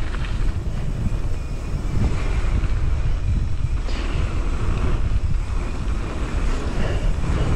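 Heavy wind rush and buffeting on the microphone of a mountain bike's point-of-view camera riding fast down a dirt and gravel trail, with tyre noise on the loose surface underneath. A couple of brief rattles of the bike come through, one about four seconds in.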